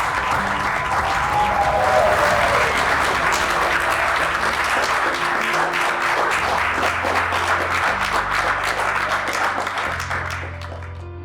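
Audience applauding, with background music underneath; the clapping fades out near the end, leaving the music.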